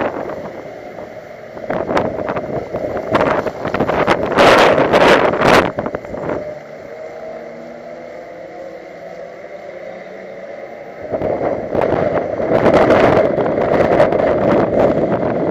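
Car driving with heavy, gusty wind buffeting on the microphone. For a few seconds midway the buffeting drops away and the engine's steady note comes through, then the wind noise returns loudly.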